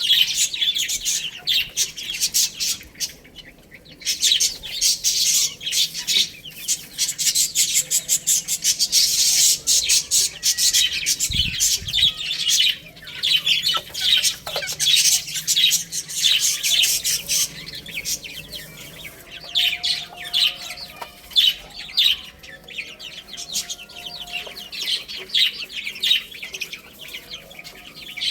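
A group of baby chicks peeping and chirping nonstop, many high calls overlapping, with a short lull a few seconds in.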